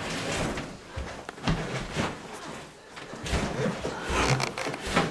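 A granite countertop being shifted into place on base cabinets: irregular gritty scraping and rubbing of stone, with several dull knocks.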